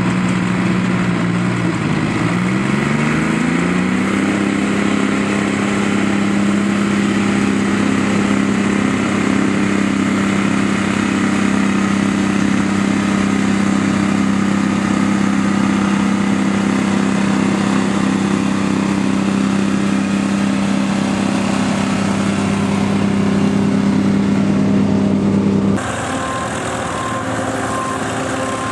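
Antique farm tractor engine pulling a weighted stone boat: it revs up about two seconds in, then holds a steady pitch under load. Near the end it cuts off abruptly to another tractor's engine running more quietly.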